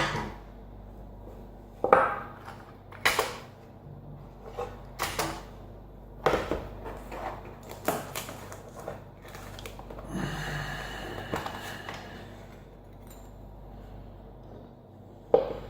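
Assa SCD oval cylinder lock being taken apart: a series of sharp metal clicks and clinks as the lock and tools knock together, with a short scraping stretch about ten seconds in.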